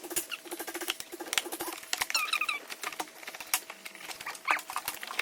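Plastic packaging being cut and torn open by hand: dense crackling, clicking and crinkling, with a few short squeaks about two seconds in.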